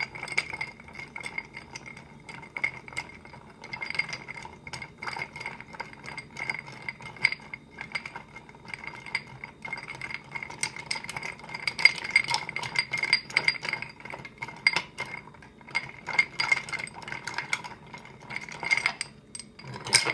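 Bar spoon stirring a few ice cubes in a glass mixing glass: continuous light clinking and rattling of ice and spoon against the glass, which rings with each tap. The cocktail is being stirred to chill it.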